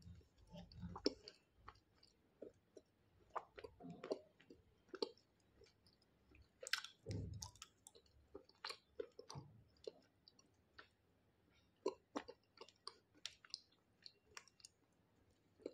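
Close-miked mouth sounds of a person chewing a piece of clay: quiet, irregular wet clicks of the tongue and lips, with two deeper low sounds, about a second in and about seven seconds in, as she swallows.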